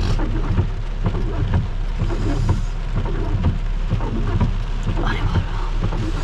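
Heavy rain pouring down, with a steady low rumble underneath.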